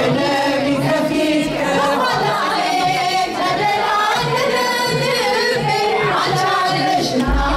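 Many voices singing a hymn together in unison, a continuous melodic line of held and gliding notes.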